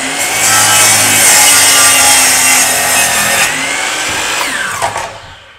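DeWalt sliding compound miter saw cutting through a 2x board: the motor is running at speed, and the blade's cutting noise is loudest for about the first three seconds. Near the end the motor winds down with a falling whine and stops.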